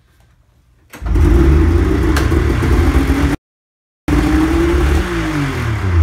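Cold Polaris Indy Ultra snowmobile two-stroke engine starting about a second in, catching at once and running at a high, steady fast idle. The sound drops out completely for a moment near the middle. Near the end the revs fall away.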